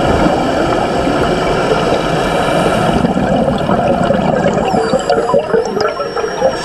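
Underwater water noise: steady rushing with bubbling and gurgling, with a faint high thin tone sliding in and out near the end.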